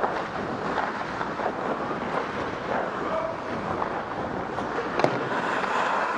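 Ice skates gliding and scraping across a rink under a steady rush of wind on a skater's body-worn camera microphone, with one sharp click about five seconds in.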